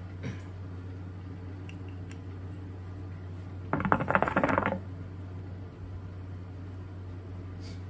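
Hookah water bubbling for about a second as a draw is pulled through the hose, a rapid run of gurgling pops; the draw is taken to spread the coals' heat through the bowl.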